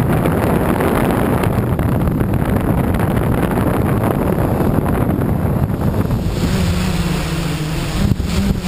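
Tricopter's brushless motors (NX-4008) and propellers heard through the onboard camera, with wind rushing over the microphone during a fast descent. About six seconds in, the motor hum comes through as a steady drone and rises in pitch near the end as the craft pulls out low over the field.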